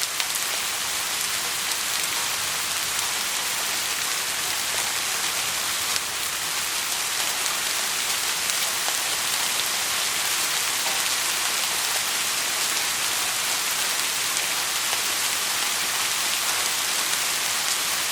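Steady rain falling, an even hiss of many drops, brightest in the upper range, with a slight break about six seconds in.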